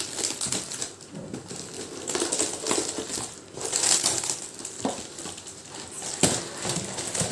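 Packaging rustling and crinkling as items are unpacked and handled, with a few light knocks and clinks.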